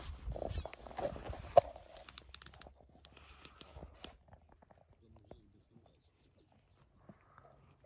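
Rustling and footsteps through short grass with handling knocks, including one sharp click about a second and a half in, then mostly quiet with a few faint ticks.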